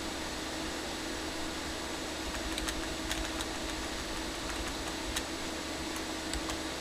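Desktop PC's cooling fans running with a steady whir and a low hum. From about two and a half seconds in, a scattering of short sharp clicks, keys being pressed while setting up the BIOS.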